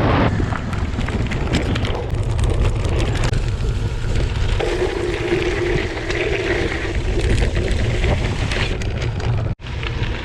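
Wind buffeting a bike-mounted camera's microphone while riding, with scattered clicks and rattle from the bicycle on the gravel. A steady hum comes in for a couple of seconds in the middle, and the sound drops out briefly near the end.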